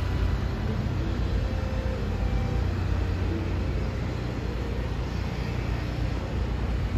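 Steady low rumble of outdoor city ambience by the harbour, with a faint hum mixed in.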